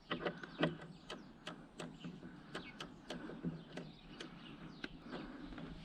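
FOX Float X2 rear air shock making a strange noise: a run of short clicks and squeaks, roughly two or three a second at an uneven rhythm, some with a brief squeaky tone.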